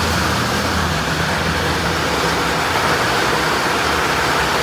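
Rain falling, a steady hiss with no let-up.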